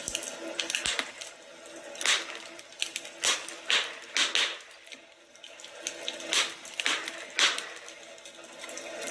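Wood fire crackling in a fireplace: a steady hiss with irregular sharp pops and snaps, a few louder ones scattered through.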